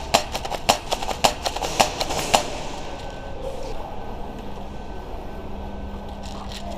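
Airsoft guns firing in a fast, irregular string of sharp single shots for the first two and a half seconds, then only a steady background hum.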